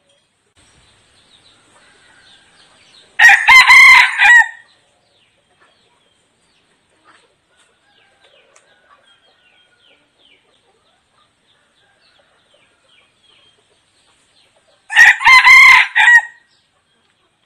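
Junglefowl decoy rooster crowing twice, the crows about twelve seconds apart, each a short crow of about a second and a half. Faint small chirps in between.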